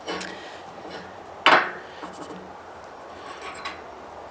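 Hard objects being handled on a work surface, most likely the steel auger blades and the sharpening stone: one sharp knock about a second and a half in, with lighter clinks and scraping around it.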